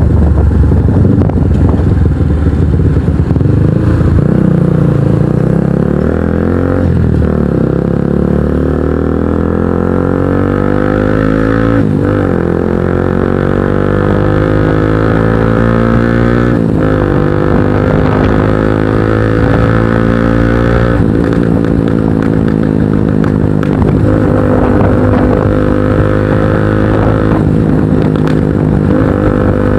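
Kawasaki NS150 motorcycle engine running through an aftermarket Akrapovic exhaust while riding. Its pitch climbs and falls, with short breaks several times as the gears change.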